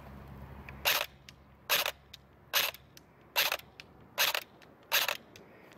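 LCT LTS-Keymod 13.5 AEG airsoft rifle firing six single shots, one about every 0.85 seconds, each a short, sharp electric gearbox cycle.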